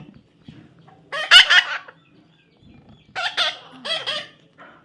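Baby parrot calling: a harsh, multi-note call about a second in, then two shorter calls after about three seconds.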